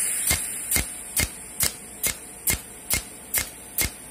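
A cold welding machine welding aluminium plate in continuous-weld mode: its pulsed arc gives a sharp, regular snap a little over twice a second over a steady high hiss.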